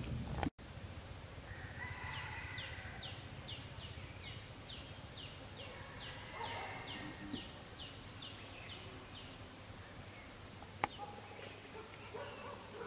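Domestic chickens in the background, with clucking and distant rooster crowing, over a steady high-pitched drone. A short falling call repeats about twice a second for several seconds in the middle.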